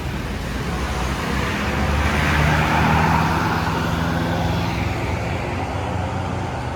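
A bus passing close by on the road. Its engine and tyre noise swell to a peak about three seconds in, then fade as it moves away.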